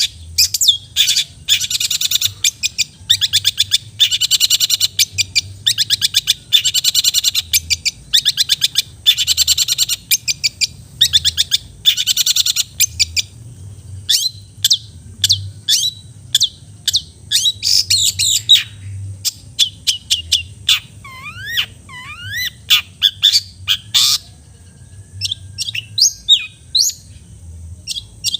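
Long-tailed shrike (cendet) singing a loud, varied song. It runs in rapid chattering trills for the first half, then breaks into sharp separate notes with a few sliding whistles about three-quarters of the way through.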